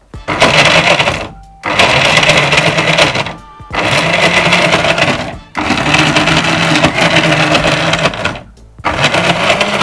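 Electric mixer grinder with a stainless-steel jar grinding mutton with garlic and ginger, run in short pulses: about five runs of one to two seconds each with brief stops between them, the lid held down by hand.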